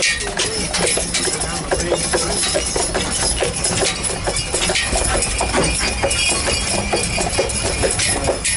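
Hooves of two Belgian draft horses clip-clopping on an asphalt street as they pull a trolley at a walk, over a steady low rumble.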